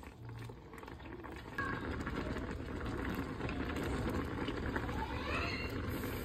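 Thick tteokbokki sauce boiling in a pan, a dense bubbling that grows louder about a second and a half in.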